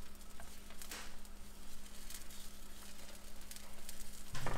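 Cooking in a frying pan: a light sizzle with scattered small clicks of a utensil, and a louder knock near the end.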